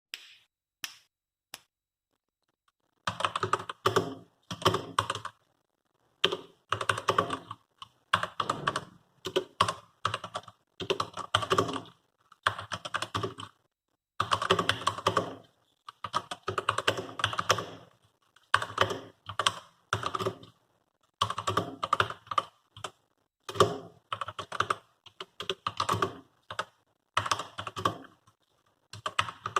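Typing on a budget $40 computer keyboard: rapid runs of key clicks and clacks in bursts with short pauses, after a few lone keystrokes at the start.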